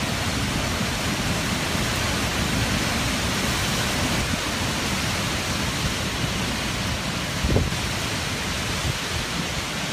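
Hurricane wind and driving rain: a steady, dense rushing noise, with one short louder gust-like thump about seven and a half seconds in.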